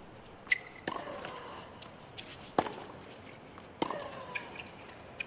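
Tennis balls struck by rackets in a fast doubles rally on a hard court: four sharp hits at uneven gaps of about a second, with brief squeaks from shoes on the court.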